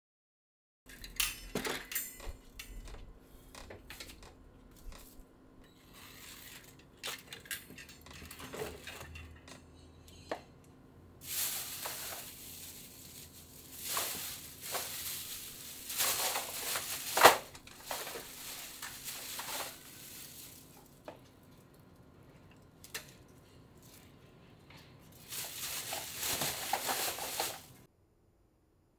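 Plastic bags being handled: rustling and crinkling in two long stretches, with scattered clicks and clinks of things knocking against a metal rack. The sound cuts off suddenly near the end.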